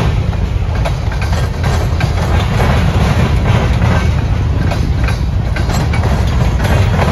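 Freight train of covered hopper cars rolling past: a steady heavy rumble of steel wheels on rail, with repeated sharp clicks and clacks as the wheels cross the track.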